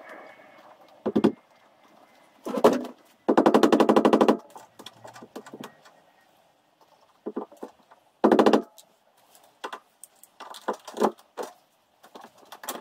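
A handheld power tool run in short bursts, the longest about a second, each with a fast rattling pulse. Clicks and knocks of tools being handled come between the bursts.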